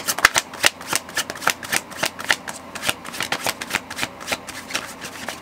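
A deck of tarot cards being shuffled by hand: a quick, irregular run of card flicks and slaps, several a second.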